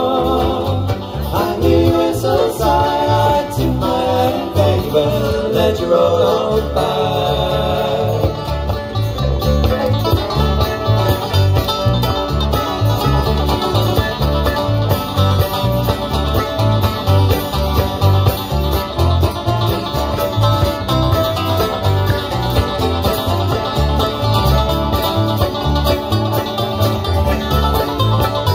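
Bluegrass band playing an instrumental passage: fiddle, banjo, mandolin and acoustic guitar over a steady beat from electric bass and drums.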